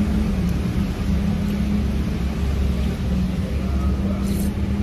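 Steady low mechanical rumble with a constant hum running under it, and a brief faint click about four seconds in.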